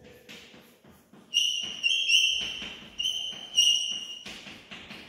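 Chalk writing on a blackboard. It starts with soft scratches and taps, then from a little over a second in gives a run of short, high-pitched squeals, one for each stroke.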